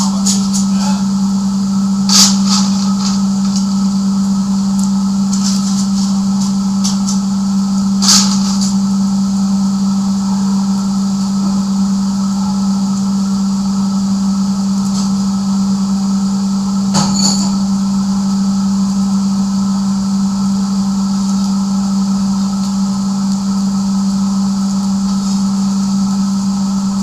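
Blacksmith's coal forge being lit under forced air: a steady low hum from the air blast runs throughout, with the fire crackling and a few sharp pops, the clearest about two, eight and seventeen seconds in.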